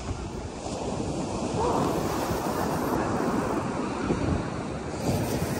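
Ocean surf washing on the beach, with wind buffeting the microphone.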